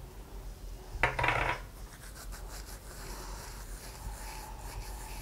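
Hands rubbing carom (ajwain) seeds between the palms to crush them over a bowl of flour: a short rustling rub about a second in, then faint rustling.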